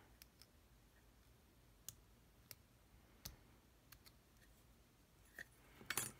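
Faint, scattered clicks and taps from a brass padlock and small metal tools being handled, about ten in all, with a few close together near the end.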